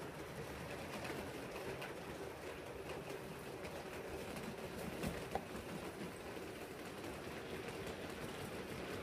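A 7mm-scale model steam train running on the layout's track as it approaches, a steady low rumble that grows slightly louder near the end.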